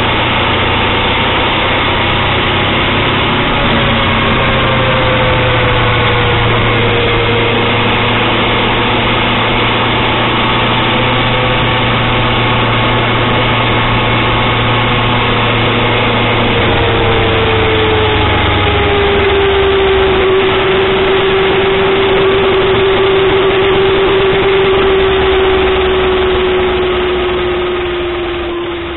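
A car's engine and road noise, heard from inside the cabin while driving. It runs steadily, and its pitch slides slowly lower in steps; the sound fades out near the end.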